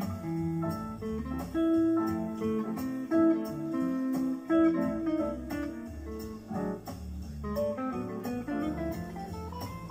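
Electric guitar playing quick single-note jazz lines over a backing of bass and drums, with a light cymbal beat ticking steadily.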